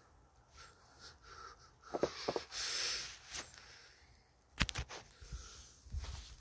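Clicks and knocks from a phone being handled, with a short breathy hiss a little over two seconds in and a low rumble near the end as the phone is swung down.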